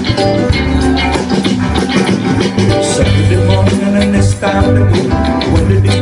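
Live band music: guitar over a bass line and percussion.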